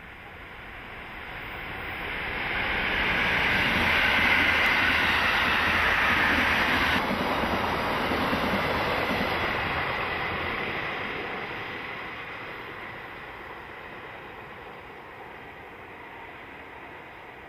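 Electric commuter train running on the track: the rolling noise swells over the first few seconds to a peak, changes abruptly about seven seconds in, then fades slowly.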